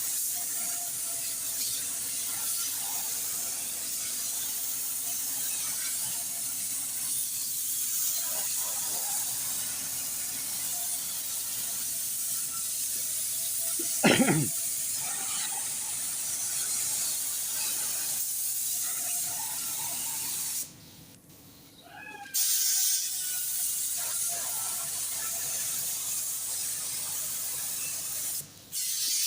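Steady hiss of compressed air from an air tool in a car body shop, such as a paint spray gun or blow gun. It cuts out for about a second and a half a little past two-thirds through, and there is a single short, loud knock near the middle.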